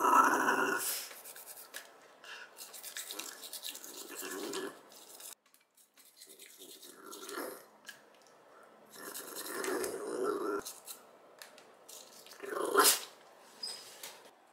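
A Shiba Inu grumbling and growling in protest as its teeth are brushed, in bouts: a loud one at the start, another around ten seconds in, and a short loud one near the end. Between them, toothbrush bristles scrubbing and clicking against its teeth.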